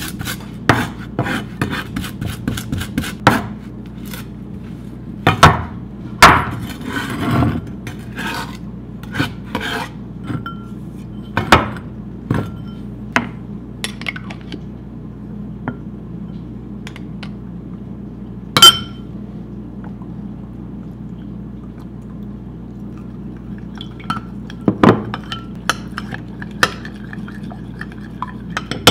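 Chef's knife tapping and scraping on a wooden cutting board as minced garlic is gathered up, followed by scattered clinks of a utensil against a small glass bowl as a marinade is mixed. The knocks are irregular and come most often in the first half, with one sharp clink about two-thirds of the way through.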